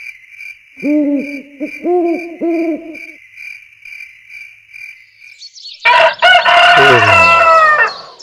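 Night-to-dawn sound effects: a high, even chirping pulse with an owl hooting four times, then a rooster crowing loudly about six seconds in, signalling morning.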